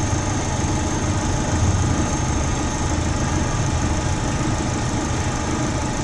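Holden Astra AH's 1.8-litre four-cylinder petrol engine idling steadily under the open bonnet. It is running lean and still in open loop, with a vacuum leak behind the lean fault code P0170.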